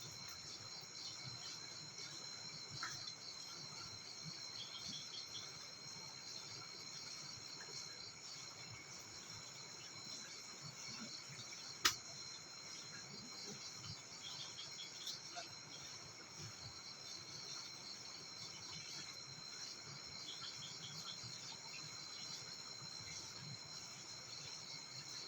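Steady high-pitched chorus of crickets and other insects, pulsing continuously, with short chirp clusters recurring every several seconds; a single sharp click about halfway through.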